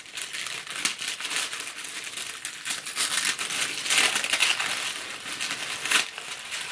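Packaging crinkling and rustling as hands unwrap the contents of a gift box, with sharper crackles about four and six seconds in.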